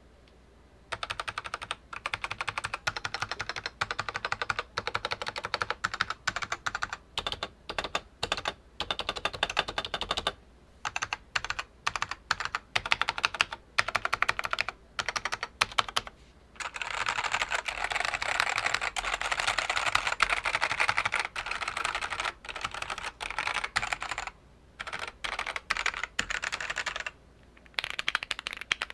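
Typing on a vintage Dell AT101W keyboard with linearized SKCM Black Alps switches. Fast runs of keystrokes come in bursts broken by short pauses, with one long unbroken stretch past the middle.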